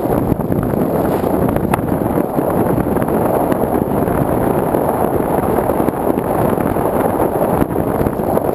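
Steady rush of air over the microphone of an onboard GoPro on a Sky Surfer RC glider in flight, with a thin high steady tone underneath.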